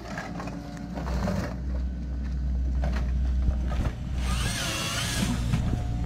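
Excavator-based harvester's diesel engine and hydraulics running steadily under load as its processor head handles a log, with clattering; about four seconds in, a louder high-pitched whine with sweeping pitch lasts just over a second.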